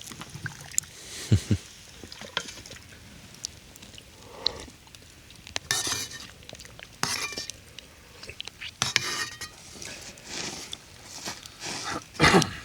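Cutlery and dishes clinking, with short stretches of liquid being poured.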